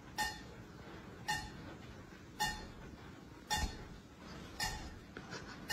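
Light clinks, each with a brief ringing tone, repeating evenly about once a second, with a few softer ones closer together near the end.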